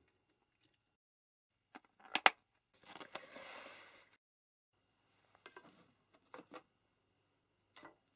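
Kitchen handling sounds: a few sharp clicks, then a rustle lasting about a second, then several light taps.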